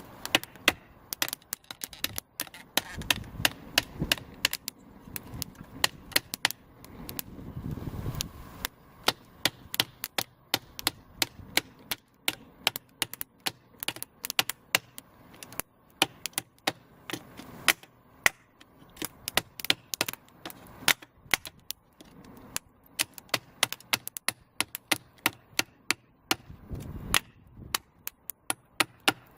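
A wooden baton knocking on the spine of a small folding knife blade (the Ozark Trail multitool's straight edge), driving it down through kindling to split it. A long, uneven run of sharp knocks, a few a second.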